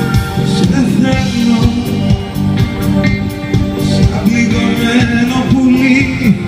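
Live pop band playing: drum kit keeping a steady beat under electric guitars, bass, violin and keyboards, with a wavering melody line on top, heard from the audience in a large hall.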